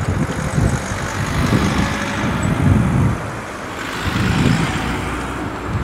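Eurocopter EC135 air ambulance helicopter running on the ground, its turbines and rotor turning steadily, with uneven low buffeting rumbles underneath.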